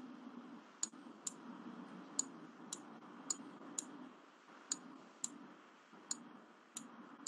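Faint computer mouse clicks, about two a second, as the button is pressed and released for each hatching stroke drawn on screen, over a faint low hum.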